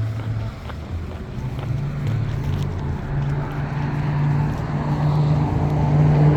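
Motor vehicle engine running close by, its low hum growing steadily louder as the vehicle approaches.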